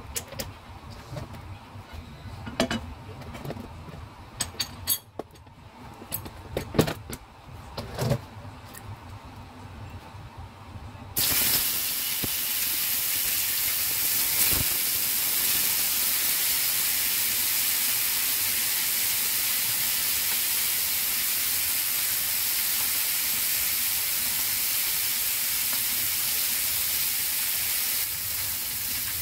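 Toman fish steaks frying in hot oil in a cast iron skillet: a loud, steady sizzle that starts suddenly about eleven seconds in as the fish goes into the pan. Before that, a few scattered clicks and knocks.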